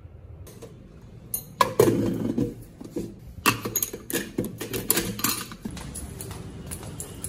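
Irregular knocks, clicks and rustling from a metal tumbler and loose sheets of paper being handled and carried, loudest from about one and a half to six seconds in, then quieter rustling.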